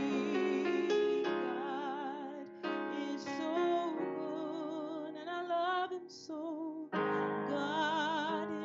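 A woman singing with vibrato over sustained piano chords on an electric keyboard, with two short breaks between phrases.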